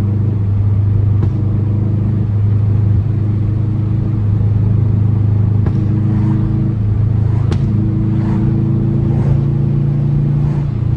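Turbocharged Subaru EJ flat-four in a 2004 WRX with an Invidia exhaust, rumbling steadily as the car is driven, its pitch shifting a couple of times with throttle and revs. A few exhaust pops crack over the drone, the sharpest about two-thirds of the way through.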